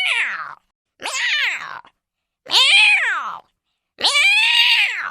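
Cartoon cat meowing sound effect: a string of meows, each under a second long with short silent gaps between. Its pitch dips and rises within each call. One meow is already under way at the start, two more follow, and a fourth begins about four seconds in.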